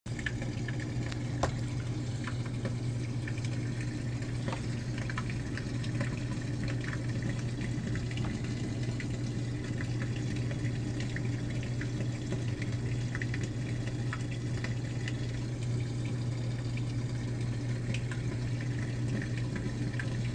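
GE Profile top-load washer draining: a steady low pump hum with water rushing through, and scattered light clicks.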